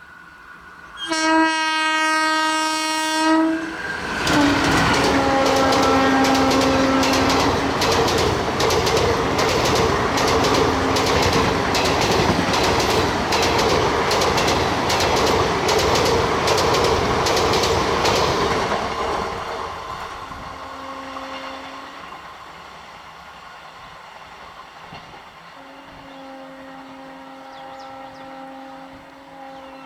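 Howrah-Balurghat Express train sounding a loud horn as it approaches; the horn drops in pitch as the locomotive passes. The train then runs by at speed, its wheels clattering rhythmically over the rail joints, and fades away after about twenty seconds. A train horn sounds faintly twice more near the end.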